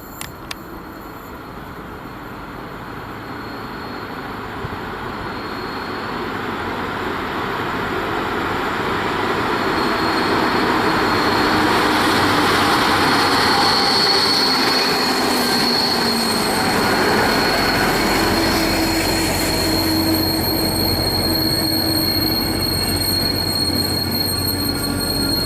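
A train double-headed by two DB class 218 diesel-hydraulic locomotives approaches and brakes to a stop, getting louder until about halfway through. Its brakes squeal with a steady high-pitched tone that is strongest about halfway, and a low diesel rumble comes in during the second half.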